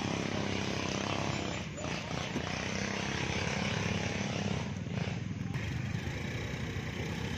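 Motorcycle and scooter engines running in a crowded parking lot, a steady mixed engine noise with indistinct voices.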